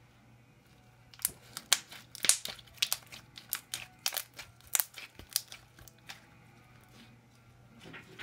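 Homemade glue-and-borax slime being squished and folded in the hands, giving a rapid, irregular string of sharp wet pops and clicks as air pockets in it burst. The popping starts about a second in and dies down after about six seconds.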